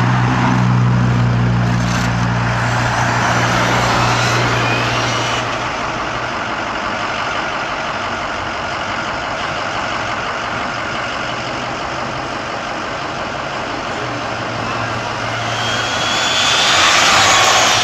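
Brushless-converted HPI Savage 5.9 XL RC monster truck running on asphalt: a high electric motor whine over tyre noise, fading as it drives off and swelling again as it comes back past, loudest near the end. A low steady hum from a full-size vehicle's engine sits under it at the start and again shortly before the end.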